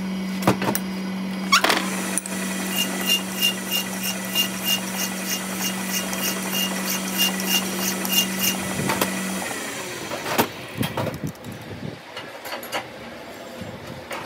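Metal lathe running with a steady hum while a flat file works against the spinning brake caliper slide pin, giving a quick, even scraping rhythm of about three to four strokes a second. The lathe stops about nine seconds in, followed by scattered clanks of tools on metal.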